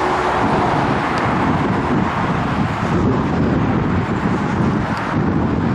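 Steady rushing noise of a moving vehicle with wind buffeting the microphone. A faint steady hum fades out about half a second in.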